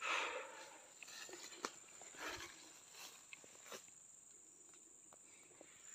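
Footsteps on dry leaves and fallen oil palm fronds: scattered crunches, rustles and sharp snaps, fairly faint, over a thin steady high-pitched tone.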